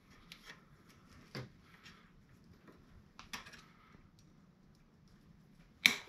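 Small metallic clicks and scrapes of a cotter pin being worked through the rear axle and axle nut with pliers, with one sharp metal click near the end.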